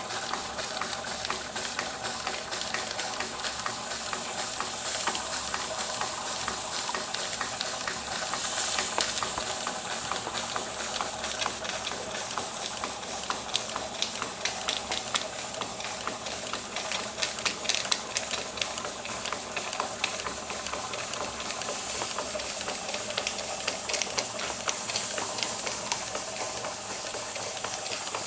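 Stuart model beam engine running steadily on live steam at a gentle speed: a continuous steam hiss with rapid, even ticking beats from the engine.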